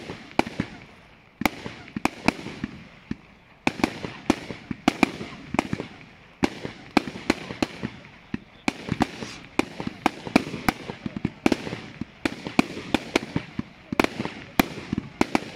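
Fireworks going off in quick succession: irregular sharp cracks and pops, often several a second, over continuous crackling, with a short lull about three seconds in.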